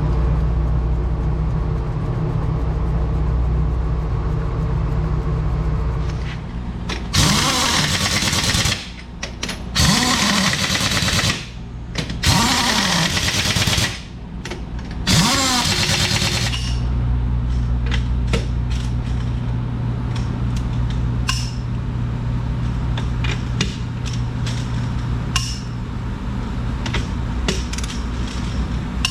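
Pneumatic impact wrench run in four bursts of a second or two each, spinning up and winding down, likely running lug nuts onto the repaired truck wheel. A steady low machine hum lies underneath, with scattered clicks and knocks in the second half.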